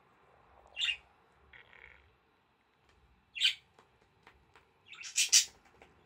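Budgerigar with a broken-off beak giving short, raspy squawks while its head is scratched: one about a second in, another about halfway, and a quick pair near the end.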